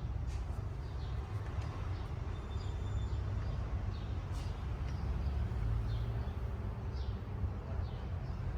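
Toyota Land Cruiser V8 engine running at a steady idle.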